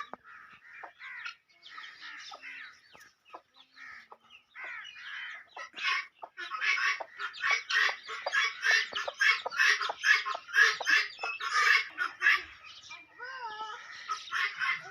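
Aseel chickens clucking and calling in short repeated notes. The calls are scattered at first, then come thick and loud from about six seconds in until near the end.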